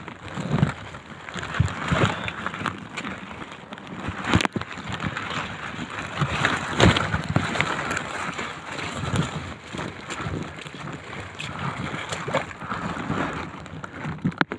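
Footsteps and rustling on a wet, muddy mountain trail: irregular sloshing with dull thumps and a sharp click about four seconds in.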